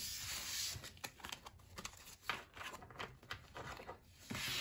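Hands handling a stack of game cards and cardboard tokens on a wooden table: a brief rustle at the start, then a run of light, irregular clicks and taps.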